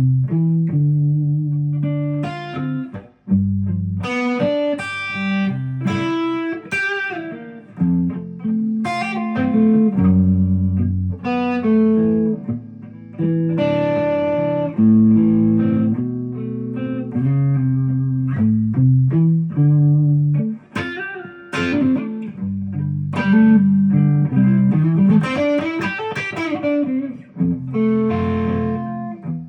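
Epiphone Les Paul Custom electric guitar played through an amp: a run of chords and single-note lines with brief pauses, including a bent note near the end.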